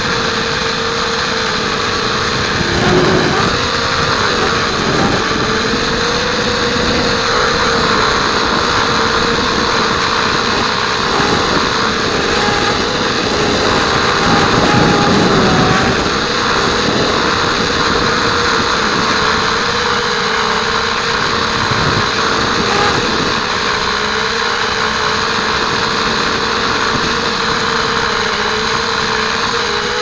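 Blade 200 QX quadcopter's motors and propellers whining steadily, heard from the craft itself, the pitch wavering and dipping briefly a few times. Heavy wind noise runs underneath.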